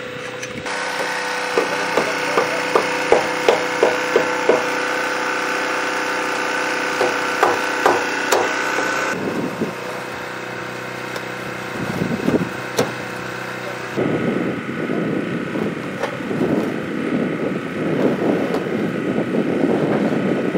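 Hammer blows on wood: a run of sharp strikes about two a second, then a few more scattered bursts of strikes, over a steady mechanical hum.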